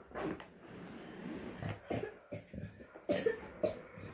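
Zipper on a padded cello case cover being worked in short tugs, with scrapes, clicks and fabric rustling as the cover is handled.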